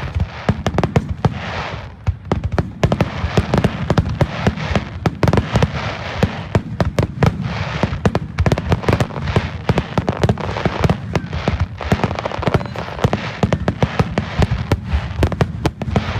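Japanese wide starmine fireworks: a rapid, continuous barrage of aerial shell launches and bursts, many sharp booms a second over a constant crackle.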